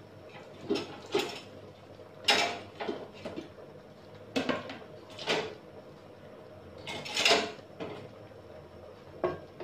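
Scattered kitchen clatter: about nine short knocks and clinks of pots, utensils or drawers, the loudest about two and seven seconds in, over a faint low hum.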